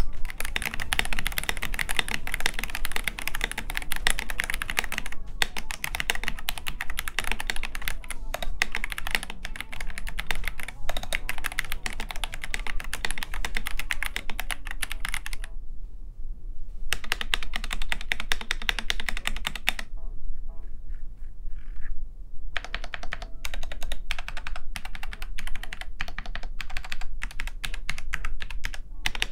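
Fast typing on stock Akko 75B Plus mechanical keyboards: first the black board with Jelly Black linear switches, later the white board with Jelly Purple tactile switches. A steady stream of key clacks, with two short pauses of a second or two in the middle.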